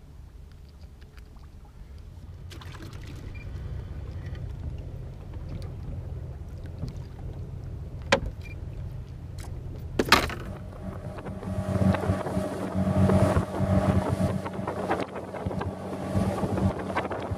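A boat engine running, with wind noise on the microphone, from about ten seconds in. Before that there is a quieter low steady hum with light clicks, and two sharp knocks about eight and ten seconds in.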